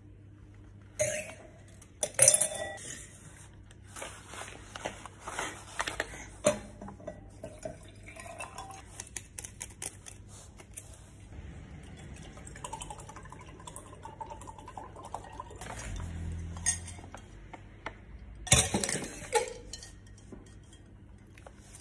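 Clinks and taps of a drink can, a glass bottle and a wine glass being handled on a countertop, with a little liquid sound. The sharpest clink comes about two seconds in, and a louder noisy burst of about a second comes near the end.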